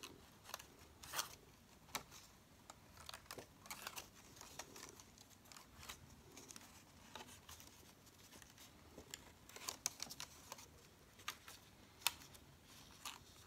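White die-cut cardstock being folded and handled by hand into a pop-up: faint rustling with many scattered crisp little clicks and crinkles of the card.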